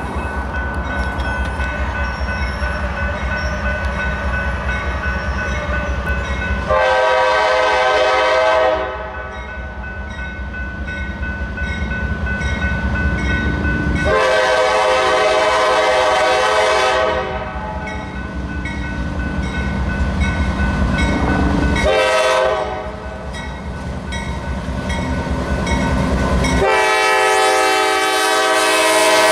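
GE AC44CW diesel-electric locomotive blowing its air horn in the grade-crossing pattern: two long blasts, a short one, then a long one that is still sounding at the end. Under the horn the diesel engine rumbles steadily as the locomotive approaches.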